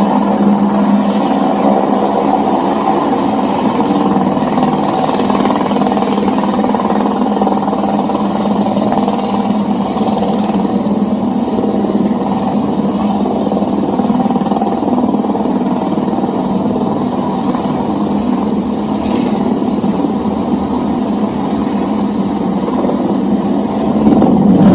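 Helicopter running steadily: a constant engine hum with a faint high whine.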